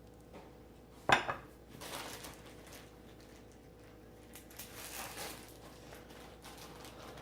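Kitchen dishes and utensils being handled: one sharp, loud clatter about a second in, then quieter clinks and handling noises.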